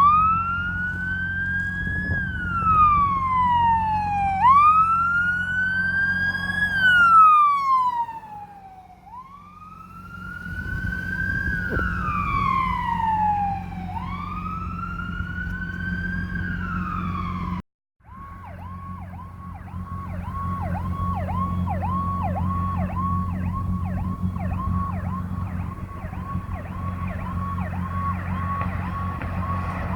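Emergency vehicle electronic siren in wail mode, four slow rises and falls, then after a brief cut a fast repeating warble of about two pulses a second, over a steady low hum.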